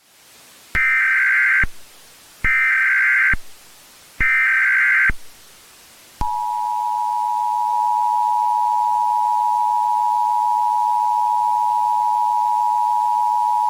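Emergency Alert System header: three roughly one-second bursts of warbling SAME data tones, followed about six seconds in by the long, steady two-tone EAS attention signal.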